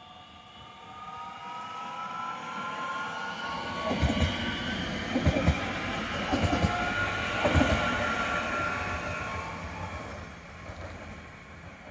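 Class 442 (Bombardier Talent 2) electric multiple unit running through without stopping. Its whine rises in pitch over the first few seconds as it approaches, and its wheels knock over rail joints in several short groups between about four and eight seconds in. The sound then fades as it moves away.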